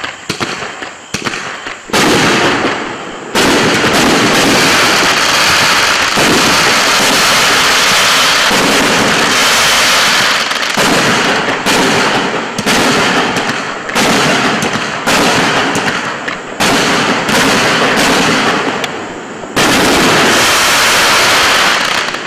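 A 21-shot, 500-gram consumer fireworks cake firing its shots in quick succession: sudden loud launches and bursts, about one a second through the middle stretch, over dense crackling that hardly lets up. The last burst, near the end, rings out and fades.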